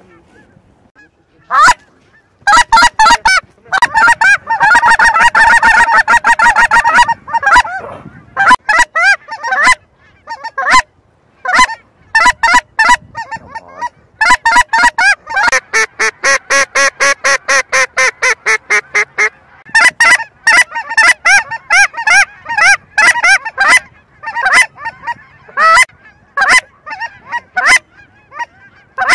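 Geese honking in a loud, dense chorus of many overlapping calls, beginning about a second and a half in and swelling twice into a continuous din, with separate honks between.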